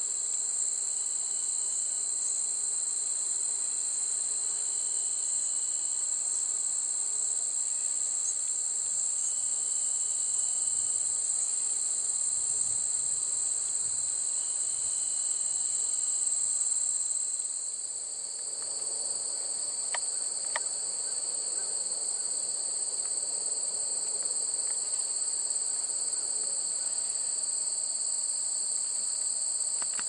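A steady, high-pitched chorus of crickets singing in unbroken trills at two pitches.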